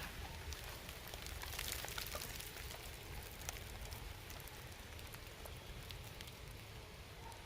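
Steady rain falling, a soft hiss with many small drop ticks, over a low rumble.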